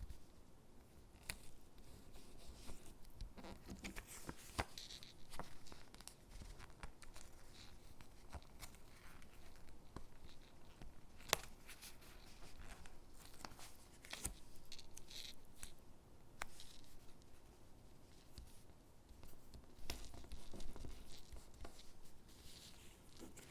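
Stickers being peeled from their backing sheet and pressed onto paper gingerbread cutouts: quiet peeling and rustling of paper with scattered light clicks and taps, one sharper click about eleven seconds in.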